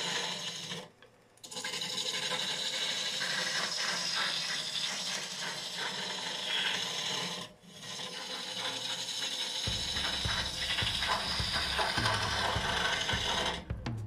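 Spindle roughing gouge cutting a spinning cherry log on a wood lathe, a steady rushing cut as long shavings peel off. The cut breaks off briefly twice, and a deeper low rumble joins about two-thirds of the way through.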